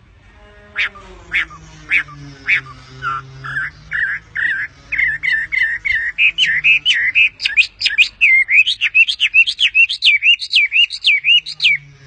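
A hwamei (Chinese melodious laughingthrush) singing: a long series of loud whistled notes starting about a second in. The notes are spaced out at first, then speed up to about four a second, each swooping up and down in pitch, and they stop shortly before the end.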